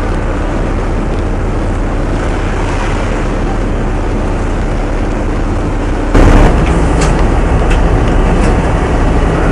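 Steady low drone of a ship's engine under a noisy wash of wind and sea. About six seconds in a sudden loud burst of noise hits the microphone, after which the noise stays louder, with a few sharp clicks.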